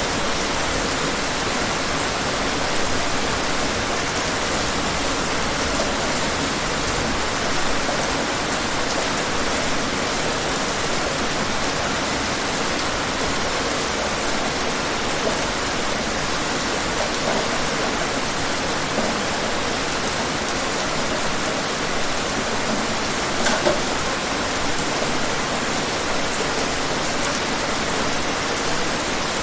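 Heavy, pouring rain: a steady, dense hiss of rainfall, with now and then a louder single drop striking a surface.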